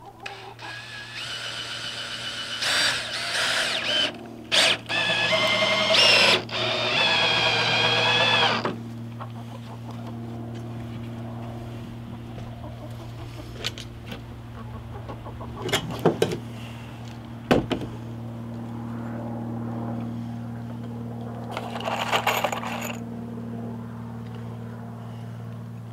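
Cordless drill driving screws into a plywood door's hinge, in several short runs whose whine rises and falls as each screw goes in, followed by a few sharp knocks over a steady low hum.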